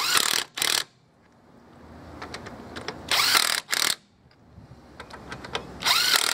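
Mondis 24-volt 1/2-inch cordless impact driver hammering on a car's wheel nuts. It goes three times, about three seconds apart, each a short rattling burst followed at once by a brief second burst.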